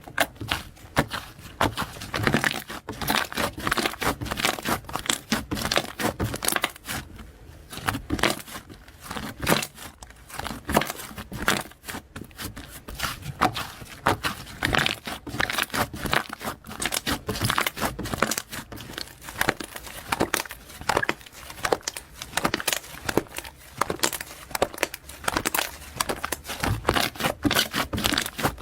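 Slime being squished and stretched, making a dense, continuous stream of sticky clicks and small pops.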